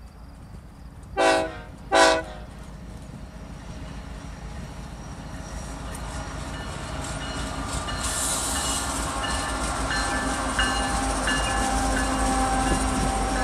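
Diesel locomotive air horn sounding two short blasts, then the locomotives and the train's cars rolling past, the rumble of engines and wheels on rail growing louder as they go by.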